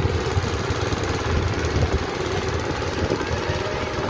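Engine of a rice-harvesting machine running steadily, with a rough, rapid low chugging over a dense mechanical clatter.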